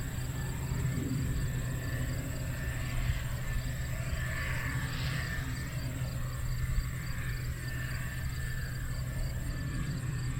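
Combine harvester, a Case IH 2300-series Axial-Flow, running steadily while cutting soybeans: a constant low engine hum with a thin high whine over it, the motor pulling a load through wet beans.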